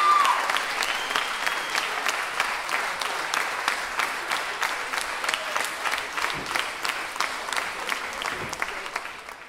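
Audience applauding, thinning and fading out toward the end.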